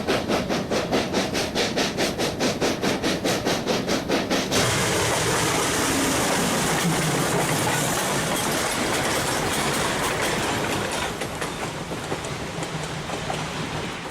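Train running: a quick, even beat of about four pulses a second, which gives way about four and a half seconds in to a steady rushing noise that slowly fades near the end.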